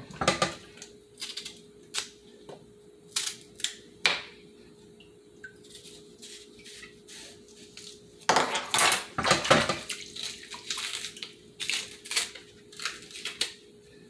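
Kitchen knife scraping and cutting the peel off green plantains, with the knife and peels knocking against a metal pot of water. Irregular clicks and scrapes, busiest about eight to ten seconds in, over a faint steady hum.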